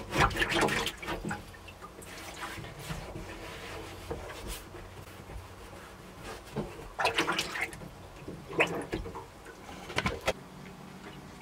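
Water splashing and swishing in a stainless steel sink basin as a hand scrubs it clean. The water comes in short bursts, most of them in the first second and a half, then again around seven, eight and a half and ten seconds in.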